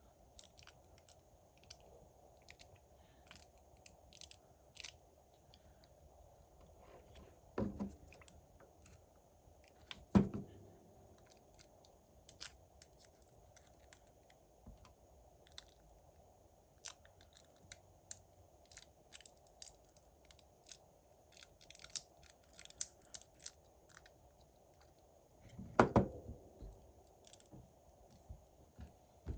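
Light, irregular clicking and scraping of small hand tools working at an iPhone battery pack, with three louder knocks about eight, ten and twenty-six seconds in.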